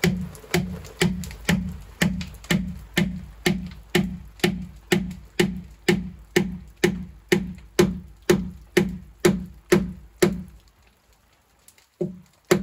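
Mallet blows driving a dry wooden dowel peg into a timber-frame joint: a steady run of sharp knocks, about two a second, for some ten seconds. After a short pause come two more blows near the end.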